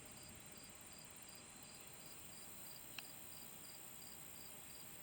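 Faint cricket chirping, short chirps repeating evenly at a few a second, with a single faint click about three seconds in.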